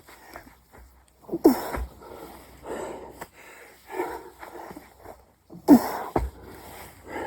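A man breathing hard through a set of burpees, with two loud, strained exhales falling in pitch about four seconds apart. Each exhale is followed shortly by a low thump, and softer panting breaths come between them.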